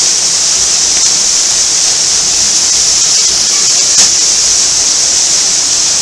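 Waterfall pouring into a rock pool close to the microphone: a loud, steady hiss of falling water, with one brief tap about four seconds in.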